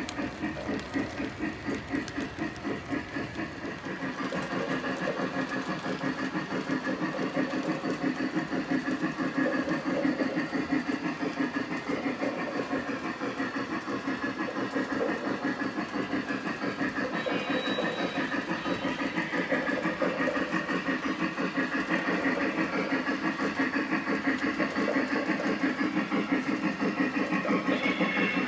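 Lionel O gauge Polar Express model train running on the layout track, with the steam locomotive's sound system chuffing in a fast, even rhythm. It grows louder about four seconds in.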